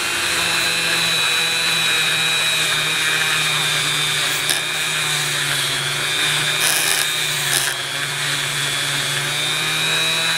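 Dremel rotary tool running steadily with a small brass wire brush, scrubbing rust and crud off a brass snap and rivets on an old leather knife sheath. There are a few brief sharper scratches midway as the bristles catch the metal.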